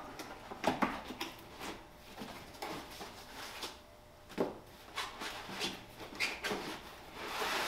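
Cardboard box being opened and unpacked by hand: flaps folded back and packing foam and packaging sliding and rustling, with scattered light knocks on the wooden benchtop.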